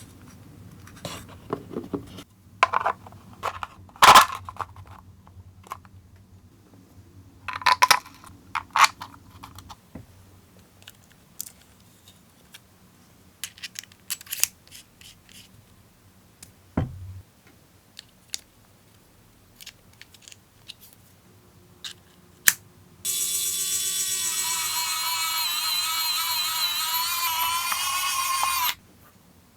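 Small hard clicks and taps of plastic parts being handled and fitted together, then, about 23 seconds in, a loud sustained sound made of several wavering high tones that lasts about six seconds and cuts off suddenly.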